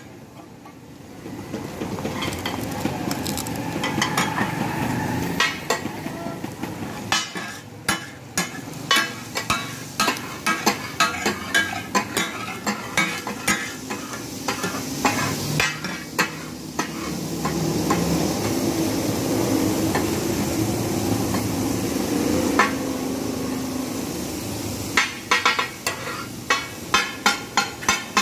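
Flat steel spatulas chopping and clacking against a large steel griddle (tawa) as minced mutton organ meats fry in butter and oil: the rhythmic takatak clatter, in quick runs of several strikes a second, over steady sizzling. The clacking thins out for a few seconds past the middle while the sizzle carries, then picks up fast again near the end.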